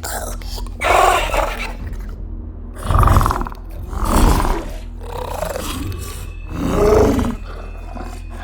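Designed monster and creature sound effects: four separate growling roars, each about half a second to a second long, over a steady low rumble.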